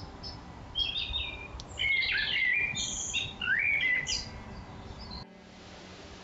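Small forest birds singing: a run of quick chirps and short phrases sliding up and down in pitch, loudest between about one and four seconds in. About five seconds in the sound cuts off abruptly to a steady hiss.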